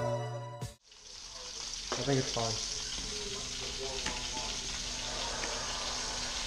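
Music fades out in the first second, then a steady hiss of water at a kitchen sink as hands rinse fish fillets in a bowl of water.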